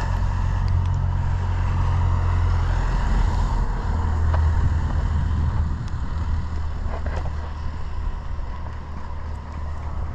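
Wind buffeting the camera microphone: a loud, steady low rumble that rises and eases a little.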